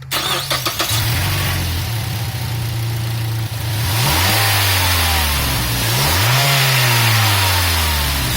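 Mazda3's 2.5-litre four-cylinder engine, still on its stock intake, idling and then revved: a quick blip about three and a half seconds in, then a longer rev that rises and falls back to idle near the end.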